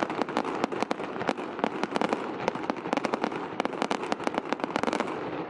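Fireworks crackling: a dense run of rapid pops and cracks that dies away about five seconds in.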